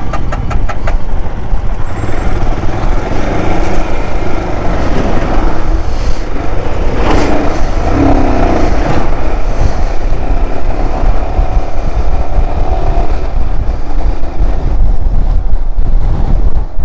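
Motorcycle riding along the road, its engine running under loud, steady wind and road rush, with a brief louder patch with some pitched sound about seven seconds in.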